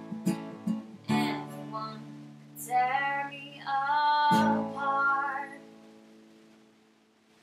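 Acoustic guitar strummed while a woman sings a few held, wordless-sounding notes. The song's final chord then rings out and fades away over the last couple of seconds.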